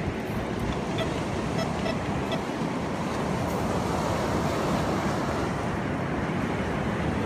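Surf washing on the beach with wind buffeting the microphone, a steady rush of noise. A few faint short beeps, from the metal detector, sound about one to two and a half seconds in.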